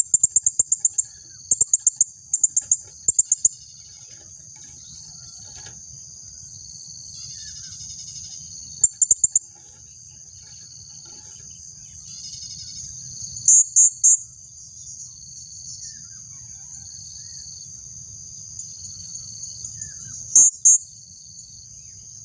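Female blue-crowned hanging parrot giving sharp, very high-pitched chirps in quick runs: several in the first few seconds, then again about 9, 14 and 20 seconds in. Under them runs a steady high insect drone.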